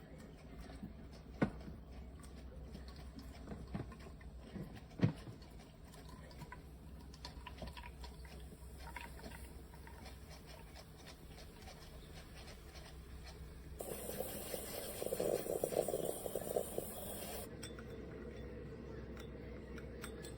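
Scattered knocks and clinks of glass and dishes over a faint steady hum. About fourteen seconds in, a louder rushing noise runs for about three and a half seconds, then stops.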